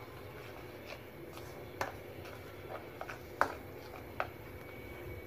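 Metal spoon stirring a thick custard-powder and milk-powder paste in a plastic bowl: soft scraping with irregular light clicks of the spoon against the bowl, the sharpest about three and a half seconds in.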